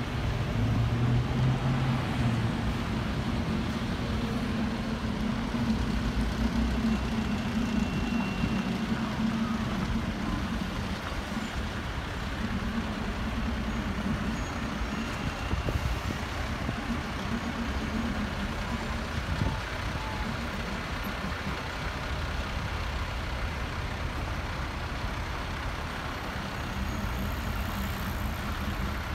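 A column of fire and rescue vehicles driving slowly past, their diesel engines running. The drone is loudest in the first few seconds, as a large aerial-platform fire engine goes by. A tracked articulated all-terrain vehicle follows.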